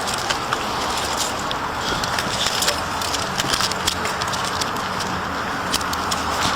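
Steady outdoor background noise on a police body camera microphone, with frequent small clicks and crackles from the camera being jostled and a faint low hum, cutting off abruptly at the end.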